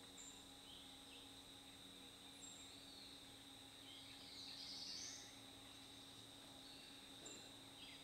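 Faint woodland birdsong: scattered short chirps and slurred calls, with a brief, busier burst of song about halfway through. A steady high insect drone runs underneath.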